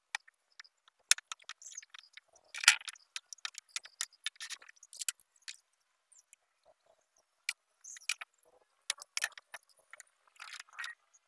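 Wooden push-block parts being handled on a workbench: scattered clicks, knocks and short scrapes of wood and plastic, the loudest a single knock about three seconds in. Near the end a quick run of clicks as a plastic clamping square and a quick-release bar clamp are fitted to hold the handle to the base.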